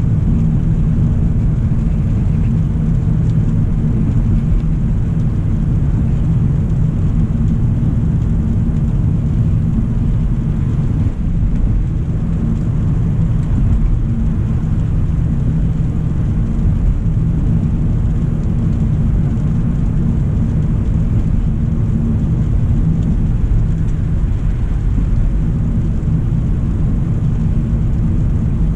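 Steady low rumble of a 2025 Hyundai Elantra SEL driving at a constant pace: road, tyre and engine noise, even throughout with no distinct events.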